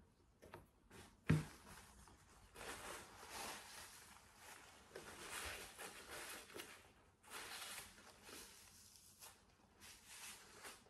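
A single thump about a second in, then a paper napkin rustling and crinkling in several long stretches as it is unfolded and used to wipe the mouth.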